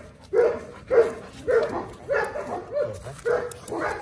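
A dog barking repeatedly, about seven barks in an even run of somewhat under two a second.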